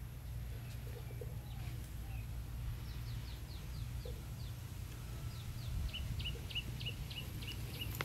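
A bird calling in a quick run of short, high, falling notes, about three a second, starting about three seconds in, over a steady low rumble.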